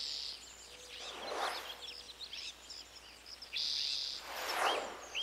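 Cartoon outdoor ambience of small birds chirping, with two whooshing swishes that swell and fade, about a second and a half in and again near the end, and two short high buzzes.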